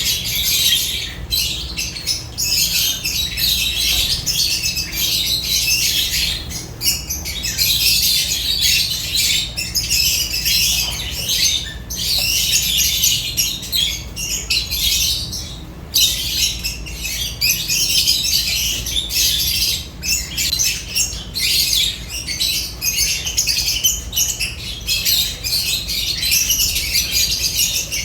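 Lovebirds chattering continuously in dense, high-pitched calls, with brief lulls about twelve and sixteen seconds in.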